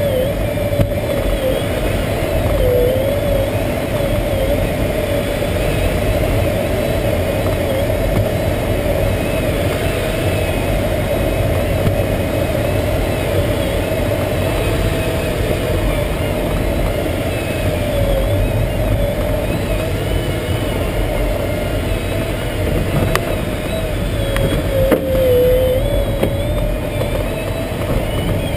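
Steady rushing airflow noise in the cockpit of an SZD-51-1 Junior glider in flight, with a continuous, slightly wavering tone over it.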